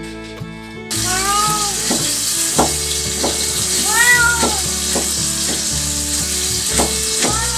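A cat meowing twice, the calls rising and falling, over a steady loud rush of strong typhoon wind that starts abruptly about a second in.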